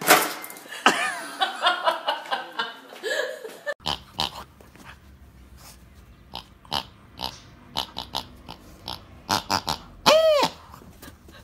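A jack-in-the-box dog toy springs open with a sudden loud sound at the start. After that, a blue rubber pig toy is squeezed, its squeaker giving a string of short oink-like squeaks and one longer squeak that rises and falls near the end.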